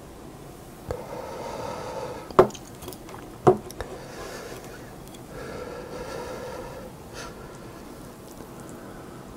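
A plate of noodles is set down on a table: two sharp knocks about a second apart, the loudest sounds. Before and after them come stretches of a steady pitched hum.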